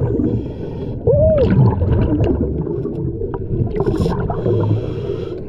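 Underwater sound on a scuba dive: a steady low bubbling rumble with two spells of hiss, typical of breathing through a scuba regulator, and a brief muffled rising-and-falling tone about a second in.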